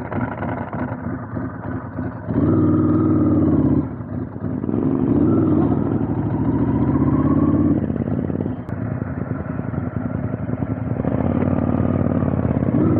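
Ducati dry-clutch L-twin motorcycle engine pulling away at low speed. It rises in pitch through two short pulls of the throttle a couple of seconds and about five seconds in, eases off, then pulls again near the end.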